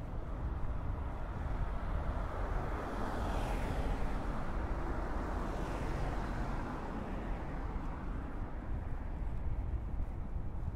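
Road traffic on a city street: two vehicles pass close by, their tyre and engine noise swelling and fading, the first about three seconds in and the second, a London black taxi, about six seconds in, over a steady low rumble.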